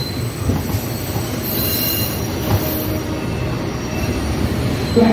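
Subway train running, heard from inside the car: a steady rumble of wheels on rail, with thin high-pitched wheel squeal rising over it for a second or two near the middle.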